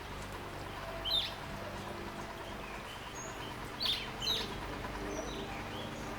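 Wild garden birds chirping: short, sharp calls, the three loudest about a second in and twice in quick succession near four seconds, with fainter chirps between, over a steady low background hum.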